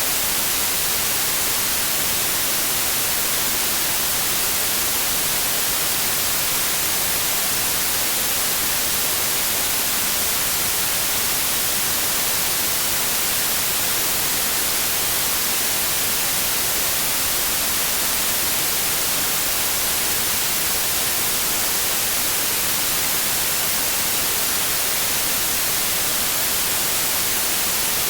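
Steady white noise: an even, unchanging hiss with a flat spectrum, sounding bright and airy, with no tones or events.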